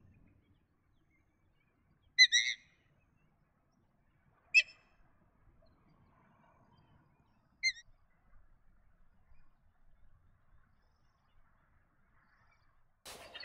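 A bird giving short, sharp, high calls: a double call about two seconds in, then single calls at about four and a half and seven and a half seconds. A noisier burst starts just before the end.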